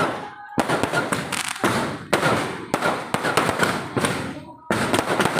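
Fireworks and firecrackers going off in a dense, rapid run of cracks and bangs, briefly thinning out twice before starting again abruptly.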